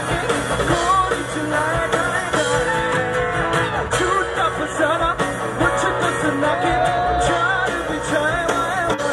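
Live rock band playing a medley of Hindi songs: male lead vocals over acoustic guitar and drums.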